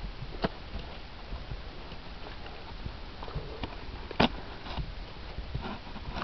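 A saddled young Thoroughbred horse moving about on grass, with a few short sharp clicks and knocks from the horse and its tack. The loudest comes about four seconds in.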